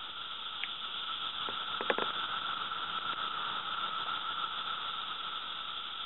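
Dense chorus of 17-year Magicicada periodical cicadas (Brood II), a steady, unbroken high-pitched drone. A single short tick stands out about two seconds in.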